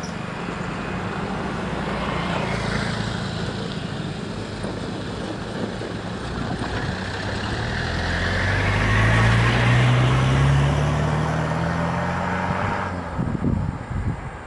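Road traffic at a level crossing: motorcycles riding over the tracks, then a minivan driving past close by, its engine rising in pitch and growing loudest about two-thirds of the way through before fading. A few low thumps come near the end.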